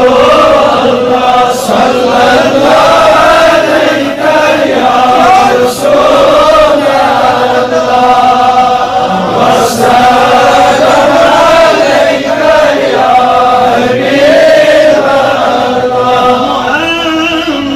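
A man reciting a naat, Islamic devotional poetry in praise of the Prophet, sung without instruments in a slow melodic chant with long held notes.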